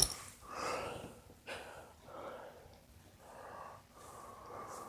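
Soft breathy puffs of air, about five of them, each under a second: a person breathing out close to the microphone.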